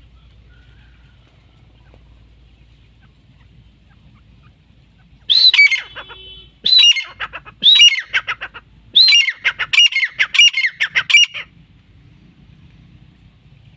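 Grey francolin (desi teetar) calling loudly: a series of high repeated notes, each dropping in pitch, starting about five seconds in. It comes first as a few spaced phrases, then as a faster run that stops near eleven seconds.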